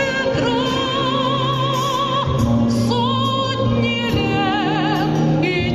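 A woman singing a slow song, holding long high notes with a wide vibrato, over an instrumental accompaniment with a steady bass line.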